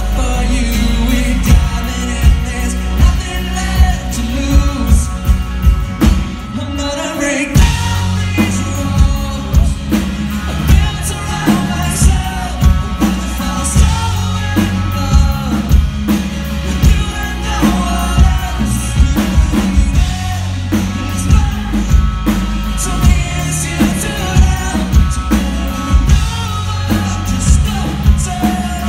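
Live rock band playing: a male lead singer with acoustic guitar over a steady drum kit beat and bass guitar.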